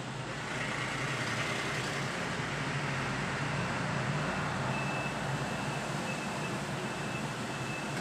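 Steady road-traffic noise that swells about half a second in, with a short high note repeating evenly, a little faster than once a second, from about five seconds in.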